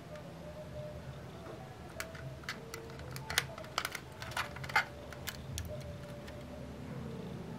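Sharp little clicks and taps of a 1/24-scale diecast model car being handled, its opening door and tailgate being worked by hand. A run of clicks falls between about two and five seconds in.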